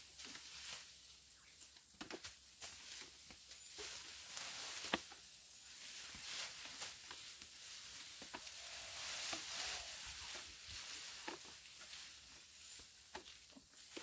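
Tall grass rustling and tearing, with scattered sharp snaps and clicks, as wild Asian elephants pull at the vegetation while feeding.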